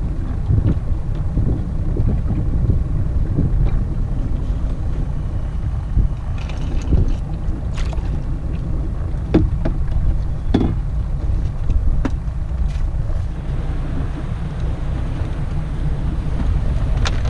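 Steady low rumble of wind on the microphone, with scattered knocks and clicks as a stone crab trap is hauled up by its line and handled on a small boat's deck.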